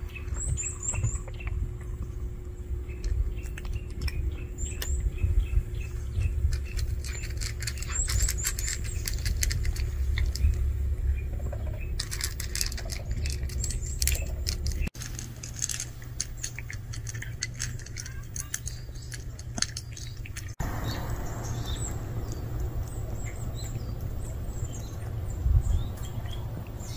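A cat crunching dry kibble from a ceramic bowl, a run of quick crisp clicks, with birds chirping in short high notes now and then over a steady low rumble.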